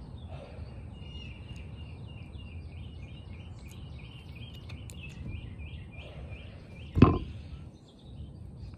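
A high chirp repeated about two or three times a second over a steady low outdoor hum, stopping about seven seconds in, where there is one sudden loud thump on the microphone.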